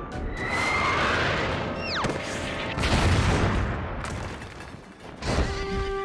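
Cartoon sound effects: a rocket rushing through the air, then a sharp falling whistle about two seconds in, and a heavy explosion boom a second later. A held musical chord sounds near the end.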